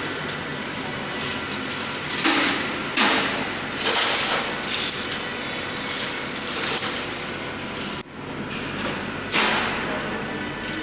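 Circuit-board recycling machinery running with a steady hum, broken by several short, loud clattering bursts. The sound cuts out abruptly for a moment about eight seconds in.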